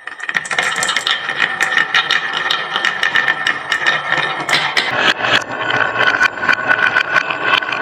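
Many marbles rolling and clattering down a wooden HABA slope marble run: a continuous rolling rumble thick with sharp clicks as the marbles knock against the track and each other. It starts suddenly at the beginning.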